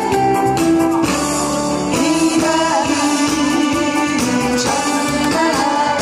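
A singer's voice over a backing track with a steady beat, played through a PA speaker.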